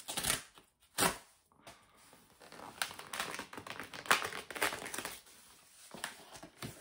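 Parcel packaging being torn and crinkled by hand in irregular bursts as a well-packed vinyl record is unwrapped.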